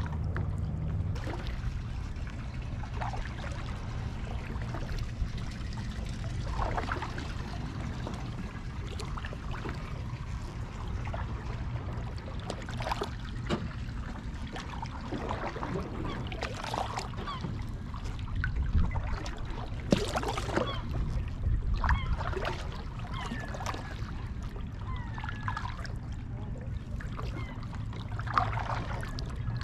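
Kayak paddling: water splashing and trickling off the double-bladed paddle as the blades dip in and lift out, in an uneven rhythm of strokes over a steady low rumble.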